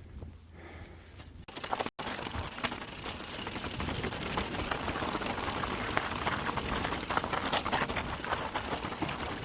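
Mountain bike rolling over a rocky dirt trail: a dense crackle of tyres crunching gravel and small stones, with the bike rattling. It is quieter for the first second or two, then breaks off briefly and comes back louder and steady.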